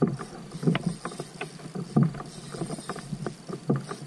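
Irregular light slaps and knocks of water against a plastic kayak hull, several a second, as the kayak moves slowly over calm water.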